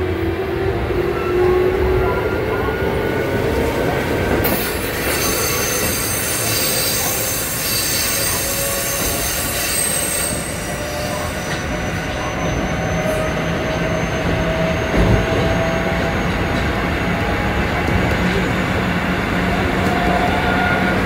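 Kintetsu 7000 series electric train under way, with the whine of its Mitsubishi GTO inverter rising in pitch at the start as it accelerates. About four seconds in, a high-pitched wheel squeal comes in for about six seconds over the steady rumble of the wheels on the rails.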